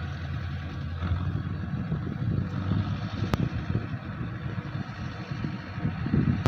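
Mahindra combine harvester running with a steady low engine rumble, and a single sharp click about three seconds in.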